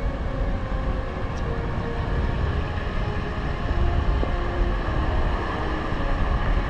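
A steady low rumbling noise with faint background music over it.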